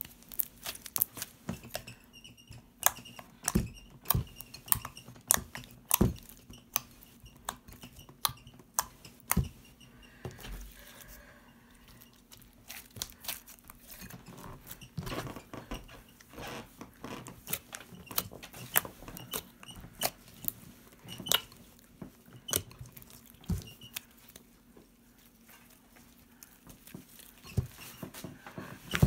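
Hands squeezing and poking freshly made fluffy slime, giving irregular sticky clicks and small pops, a few a second with short pauses.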